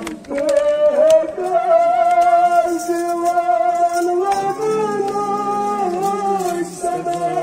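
Music with singing: long held sung notes that waver slightly and glide between pitches.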